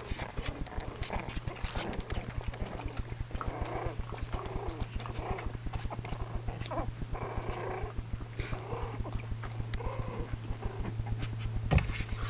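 ChiPoo (Chihuahua-poodle mix) puppies playing, making short, small growling and yipping sounds over rapid, constant clicking, with a steady low hum underneath. There is one louder sharp knock near the end.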